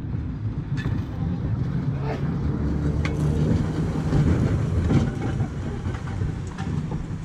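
Open-bench electric streetcar of the Baltimore Traction Company rolling past close by on the track. A steady low running noise with scattered clicks from the wheels crossing rail joints and the switch is loudest about four to five seconds in.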